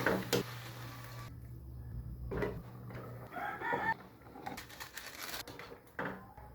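A chicken clucking, with a few sharp knocks in between.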